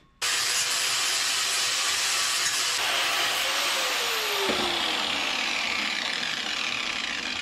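Angle grinder grinding steel: a steady harsh hiss that starts abruptly, its pitch sagging a little about halfway through.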